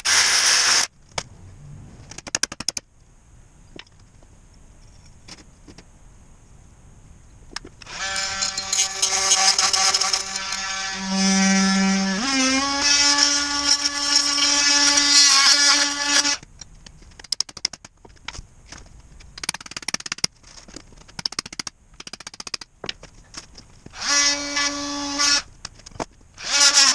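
Power saw cutting through a foam-filled tire. Its motor whines steadily for several seconds, steps up in pitch partway, then stops; a shorter run comes near the end. Scraping and knocking are heard in between.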